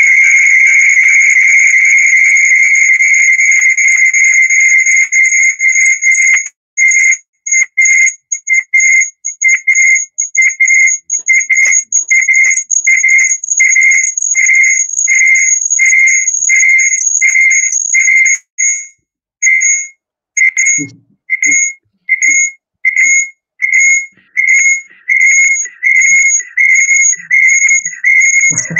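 Loud, high-pitched electronic tone, steady for about six seconds, then beeping on and off about one and a half times a second.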